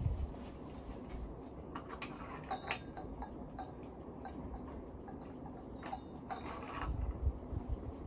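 Glass shades on a ceiling fan's light kit clinking and ticking against their metal fitters as they are handled, over the steady whir of the running Hunter Original fan. Low thumps at the start and again about seven seconds in.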